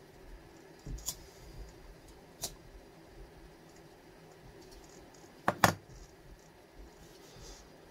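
A few sharp clicks over quiet room tone. Faint single clicks come about one and two and a half seconds in, and a louder quick double click comes about five and a half seconds in.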